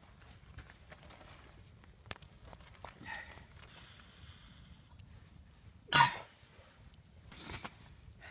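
Campfire with scattered small crackles, and one short, loud cough about six seconds in, followed by a softer breathy sound a second later.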